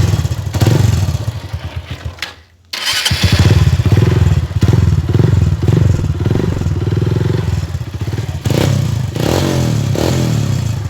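Honda CG 125 Fan single-cylinder four-stroke engine running on its unmodified exhaust, before the Pop 110 baffle is fitted. It is revved in a series of blips, with a short break about two and a half seconds in and a couple of rising revs near the end.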